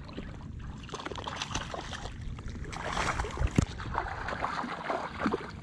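Choppy shallow bay water sloshing and splashing right at a microphone held at the surface as a landing net is dipped in to land a hooked speckled trout. The splashing grows louder and rougher about halfway through, with a couple of sharp knocks about three and a half seconds in.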